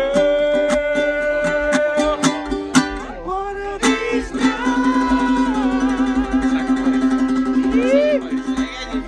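Music: a ukulele strummed with long held sung notes that waver and slide in pitch; the strumming thins out about halfway through.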